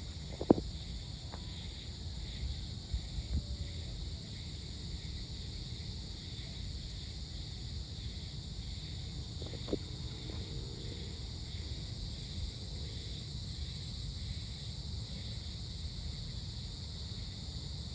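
Evening insects chirring steadily, a high pulsing drone, over a low rumble. A sharp knock about half a second in and a fainter one near ten seconds.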